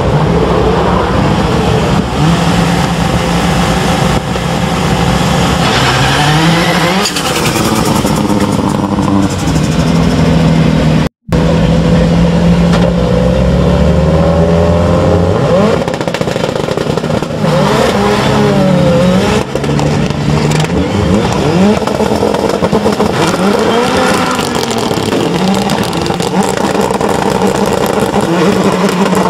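Several rallycross cars' engines running on the start grid, revved up and down again and again, their pitch rising and falling as they are held at the line. The audio cuts out briefly about eleven seconds in.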